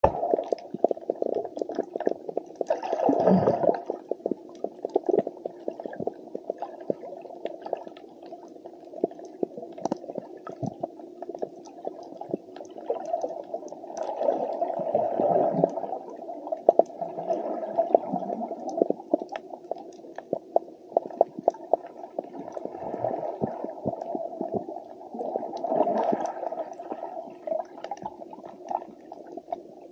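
Underwater ambience on a shallow coral reef, heard through a camera housing: a steady muffled rush of water with many scattered sharp clicks. Louder swells of rushing, bubbling water come and go a few times, about ten seconds apart.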